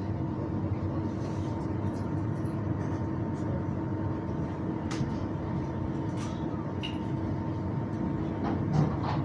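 Steady running hum of a West Midlands Metro tram, with a constant low whine held through it. Faint voices and a few sharp clicks are heard, the loudest click near the end.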